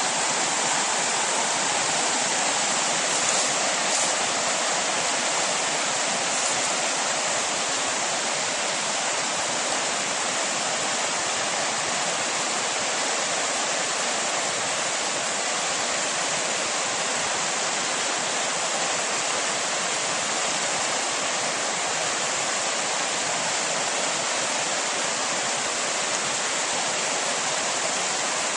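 Whitewater of a small river rushing over rock ledges and boulders in a short cascade: a steady, unbroken rush.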